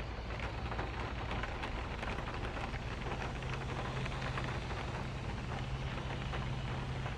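Steady rain falling, a dense even wash of many small drops, with a low steady hum underneath.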